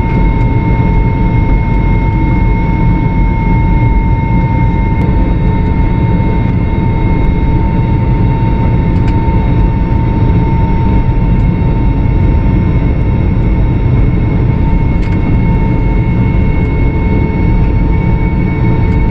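Airbus A320 jet engines running at taxi power, heard from inside the passenger cabin: a steady rumble with a steady high whine over it.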